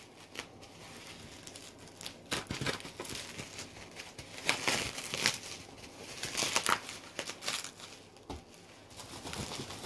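Plastic wrapping crinkling as it is pulled off a set of paperback books by hand, in irregular crackles that are loudest about five seconds in.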